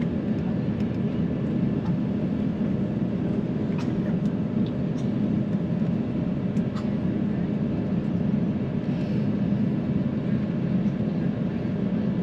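Steady cabin noise inside an Airbus A350-900, its Rolls-Royce Trent XWB engines running at an even level, with a few faint small clicks and rattles.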